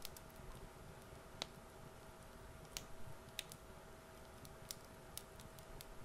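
Quiet room tone with a faint steady hum, broken by a scattered handful of short, sharp little clicks and ticks at irregular times.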